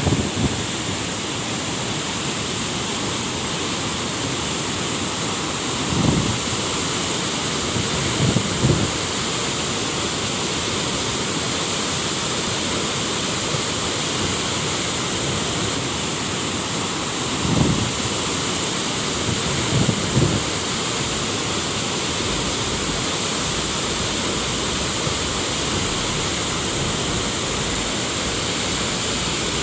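Waterfall rushing steadily, an even hiss of falling water, with a few brief low thumps.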